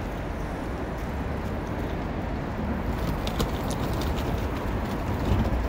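Outdoor city street noise: a steady low rumble of traffic, with a few faint ticks around the middle.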